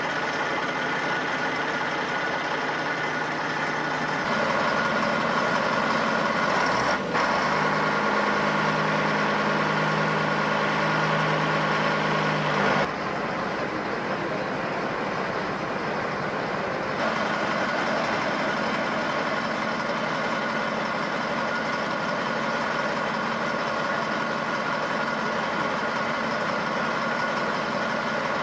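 Large diesel truck engine idling steadily. There is a brief click about seven seconds in, and the tone shifts a few times.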